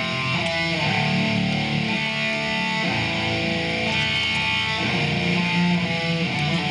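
Background music of guitars, with a steady rock beat.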